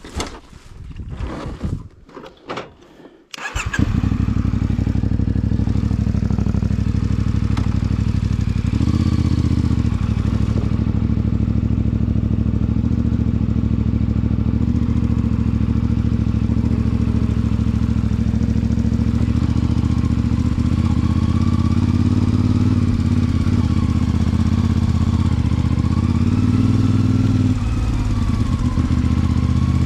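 CFMOTO 450MT Ibex parallel-twin motorcycle engine starting from stock. After a few seconds of irregular knocks, it catches about three and a half seconds in and then idles steadily through the stock exhaust.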